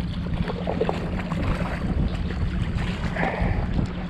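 Yamaha FXHO WaveRunner's engine idling with a steady low hum, under wind buffeting the microphone and water slapping and splashing around the hull.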